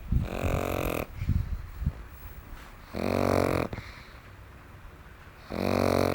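A pug snoring: three loud, pitched snores, about two and a half seconds apart, with softer snuffling breaths between them.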